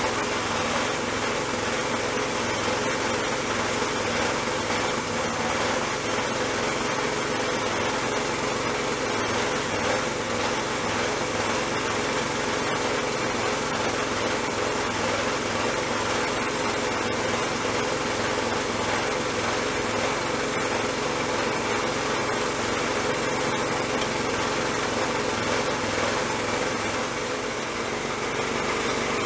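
Sandblast gun hissing steadily inside a blast cabinet as abrasive is blown against a drill's housing parts, with a steady motor hum underneath.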